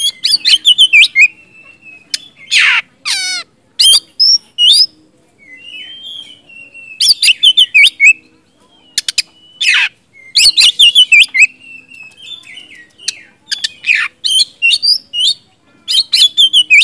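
Oriental magpie-robin singing loudly: varied phrases of sharp whistles and rapid chips with a few harsh rasping notes, in bursts separated by short pauses.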